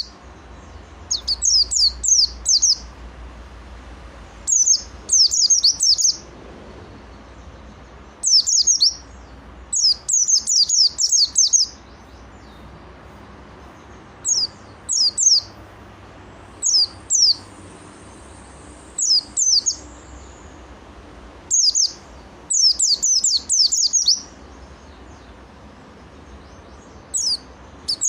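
White-eye (pleci) in full song: clusters of quick, high, downward-slurred chirps about a second long, repeated every couple of seconds with short pauses between.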